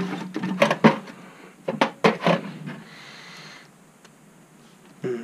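3D printer parts and hand tools being handled on a workbench: a quick run of sharp clicks and knocks over the first two to three seconds, then quieter.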